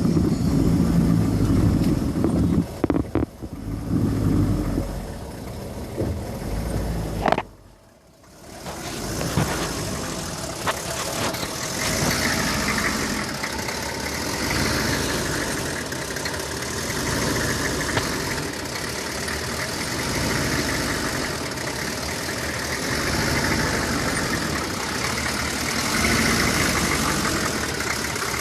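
1995 Chevy 3500 pickup's engine idling roughly and unevenly. The sound drops out briefly about seven seconds in, then the uneven idle carries on.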